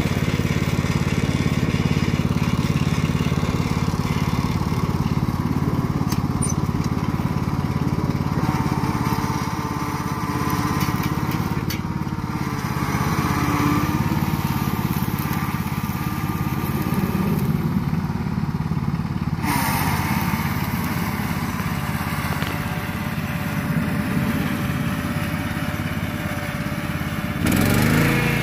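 Toro riding lawn tractor's engine running steadily under load while it tows a logging arch with a log dragging behind.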